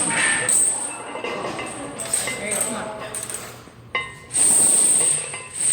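A lifter's heavy, hissing breaths under strain during a heavy bench press set: several forceful breaths, then a long loud exhale about four and a half seconds in. A sharp metallic clink just before the long exhale.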